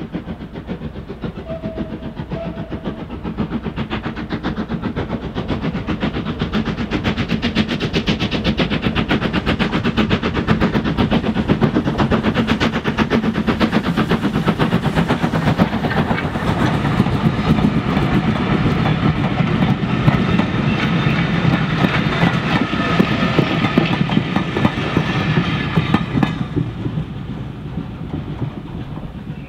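A small steam tank locomotive working a train of vintage carriages, its rapid exhaust beats growing louder as it approaches and passes. The carriage wheels clatter over the rail joints, and the sound drops away suddenly about three seconds before the end.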